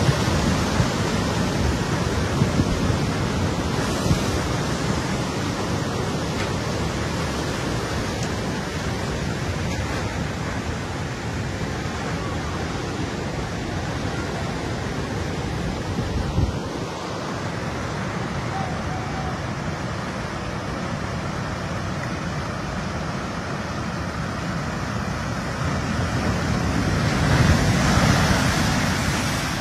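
Sea waves surging over a seawall and flooding across the land in a steady roar of rushing water, swelling louder near the end as a big wave breaks.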